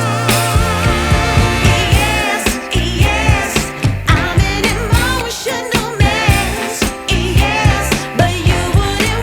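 Background pop music with a female-sounding sung vocal over a steady beat.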